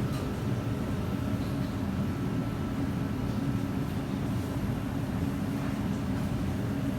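Steady low mechanical hum with a faint high whine above it.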